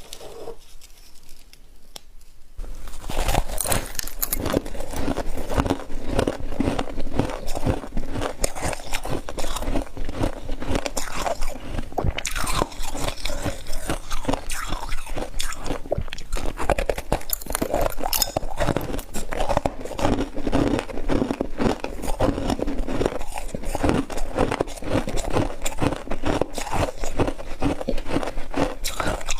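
Chunks of freezer frost being bitten and chewed close to the microphone: a continuous crunch of many sharp cracks, starting about two seconds in.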